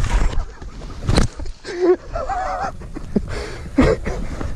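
Heavy breathing and drawn-out, wavering vocal noises from a mountain biker, close to a chin-mounted camera microphone, with a sharp thump on the microphone about a second in.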